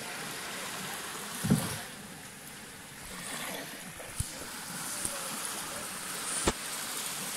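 Steady wash of sea surf on a beach, broken by a few short thumps, the loudest about a second and a half in.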